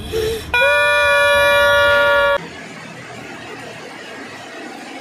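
A single loud, steady horn blast, one held pitch for about two seconds, starting about half a second in and cutting off abruptly, then only a faint hiss.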